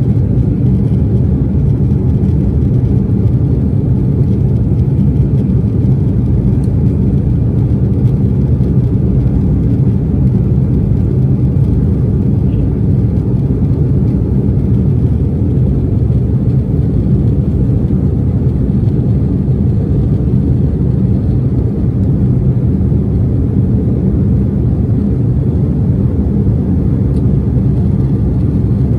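Steady, deep cabin noise of an Embraer E175 jet in its climb after takeoff: the GE CF34 turbofan engines and rushing air heard from a seat over the wing.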